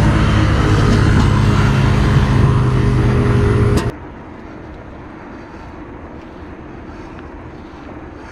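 Steady engine hum of a motor vehicle with a hiss over it, cutting off sharply about four seconds in to the much quieter hiss of a bicycle rolling on a concrete path.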